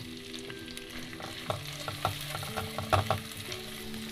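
Chopped onions frying with cumin seeds in butter and oil in a metal pan, sizzling steadily as a silicone spatula stirs them. The spatula knocks against the pan a few times, most sharply about three seconds in.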